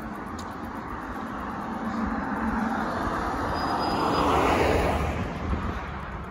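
A vehicle passing by: its noise swells to a peak about four seconds in and then fades away.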